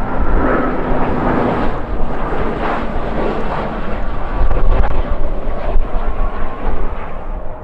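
Strong gusting wind buffeting the microphone in uneven rumbling surges, over the steady noise of a jet airliner's engines.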